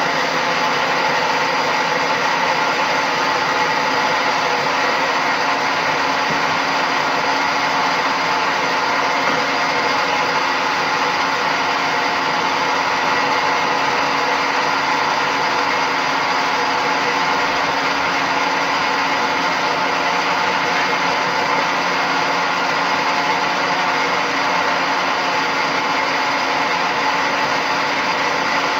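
Electric countertop blender motor running steadily at full speed, whirring as it blends milk and yogurt into lassi.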